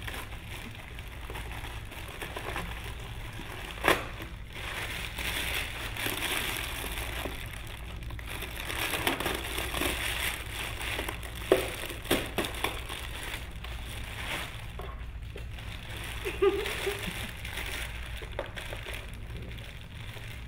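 Thin clear plastic bag crinkling and rustling as it is worked and pulled off an RC scale crawler truck, with a few sharp knocks along the way.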